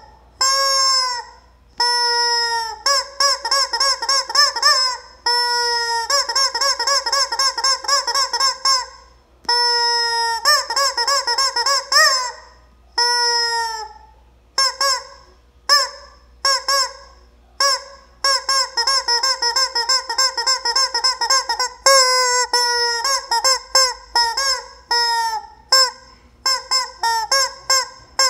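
Rubber screaming-chicken toy squeezed over and over, letting out loud honking squawks. Some are held for a few seconds with a wavering pitch; in the second half they come short and quick, one after another.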